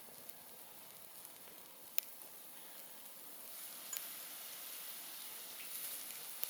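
Wood campfire crackling: a steady hiss of burning wood with a few sharp pops, the hiss getting a little louder partway through.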